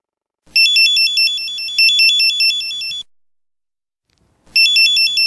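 Mobile phone ringtone: a rapid electronic warble of alternating high tones. It rings for about two and a half seconds, stops, and starts ringing again about four and a half seconds in.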